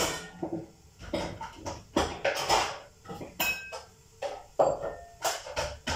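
Kitchen crockery and pans clattering: irregular knocks and clinks as dishes are handled and set down, with a short ringing clink a little past the middle.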